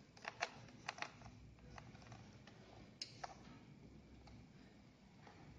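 Faint, scattered plastic clicks and ticks, a few close together in the first second and two more about three seconds in, as a laptop's plastic back cover is pried open.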